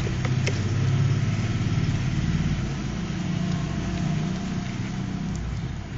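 A steady low motor hum, like an idling engine, with a couple of faint clicks about half a second in.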